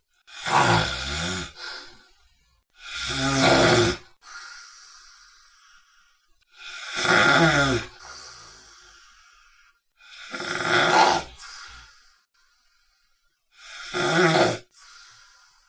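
A dog snoring in its sleep: five loud snores, each a second or so long and about three to four seconds apart, with a fainter breathy hiss after some of them.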